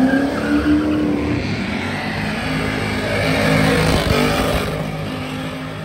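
Chevrolet Monte Carlo's engine revving hard and held high as the car does a burnout, its rear tyres spinning and smoking. The revs dip briefly about four seconds in, then climb again.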